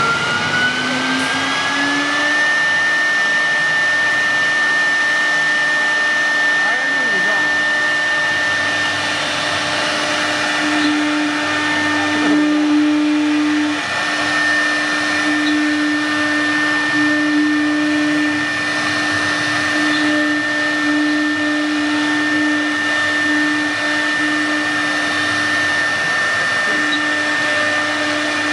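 6 kW HSD spindle of a CNC wood router running with a steady high whine that rises in pitch over the first two seconds as the spindle comes up to speed, then holds while the bit routes grooves into a wooden board.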